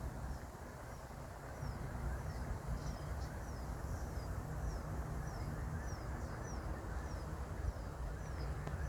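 A small bird calling over and over with short, high, falling chirps, about two a second, over a steady low rumble of wind or distant traffic.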